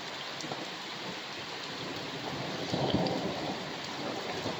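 Heavy rain falling steadily, with a swell of thunder rumbling about three seconds in.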